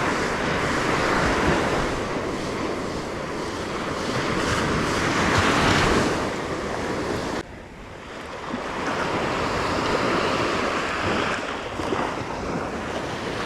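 Ocean surf washing onto the beach, swelling and ebbing, with wind buffeting the microphone.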